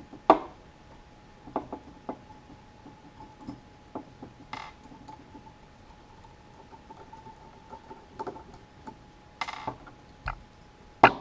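Scattered sharp clicks and taps of small metal parts and grip panels being handled as the grips come off a 1911 pistol frame, the loudest about a third of a second in and another near the end. A faint steady high tone runs behind them from about two seconds in.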